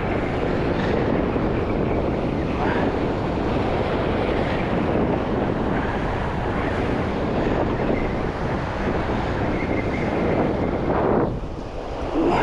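Strong wind buffeting the microphone over waves breaking and washing on the rocks, as a steady loud rush that dips briefly near the end.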